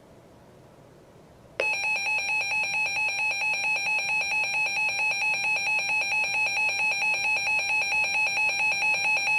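Emergency Alert System attention signal: a loud, steady two-tone alarm that starts suddenly about a second and a half in and holds, after a brief near-quiet gap.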